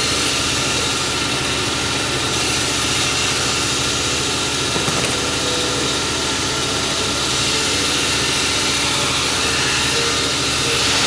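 A motor-driven workshop machine switches on abruptly and runs loud and steady with a fast, even throb.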